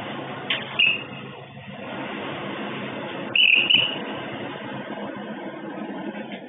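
Steady street background noise picked up by a security camera's microphone, with two short high bird chirps, one about half a second in and a louder one about three and a half seconds in.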